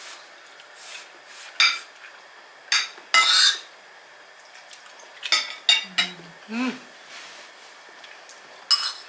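Spoon clinking and scraping against a soup bowl during eating: several separate sharp clinks spread over the seconds, the loudest just after three seconds in.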